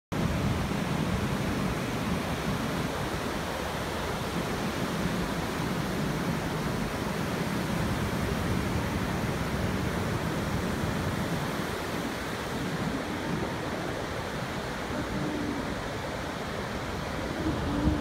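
Ocean surf breaking and washing up the beach: a steady, even wash of noise.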